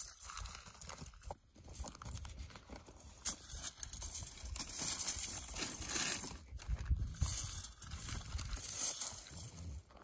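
All-metal extendable leaf rake scraping and rustling over dirt and dry twigs in repeated strokes.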